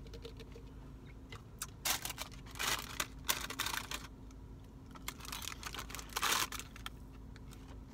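Paper takeout bag rustling and crinkling in about five short, irregular bursts with small clicks between them, as fingers dig into it for onion rings.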